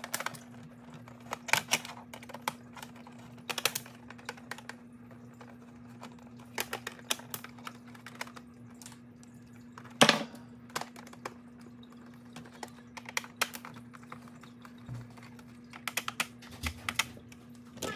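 Screws being backed out of a Big Mouth Billy Bass's plastic back plaque with a small screwdriver: scattered clusters of light clicks and ticks from the driver tip, screws and plastic, with one louder knock about ten seconds in. A faint steady hum runs underneath.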